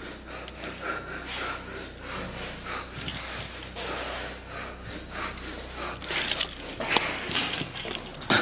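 A person breathing heavily and fast close to the microphone, in quick rasping breaths that get louder near the end, with some rubbing of clothing or the camera.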